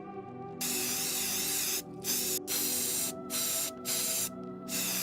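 Loud bursts of hiss that cut in and out abruptly, about six times, over held synth-like music chords.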